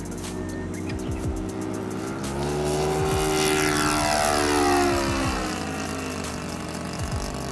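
Saito FA56 four-stroke glow engine of a radio-controlled model plane at full throttle on the take-off run and climb-out, its pitch swinging from high to low as it passes close by about halfway through, loudest just after the pass, then fading as it climbs away.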